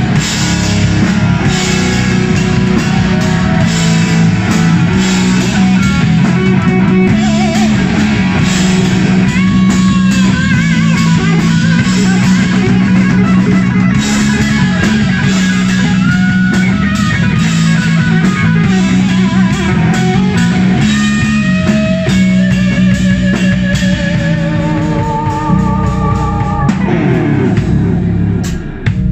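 Live rock band playing loud: an electric guitar solo of single lead notes with bends and vibrato over drums and bass guitar.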